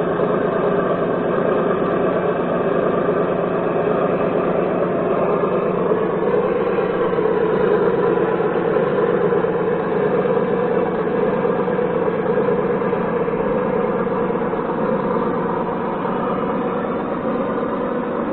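Electronic engine sound simulator (ESS sound box) in a Traxxas Summit RC truck, playing a steady low-revving engine note through its speaker as the truck crawls slowly uphill. The pitch drifts only slightly.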